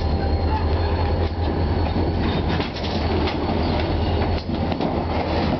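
Guilford Rail freight train rolling past at close range, its diesel locomotive just gone by and lumber-loaded flatcars following. A steady, heavy rumble with wheels clicking over the rail joints.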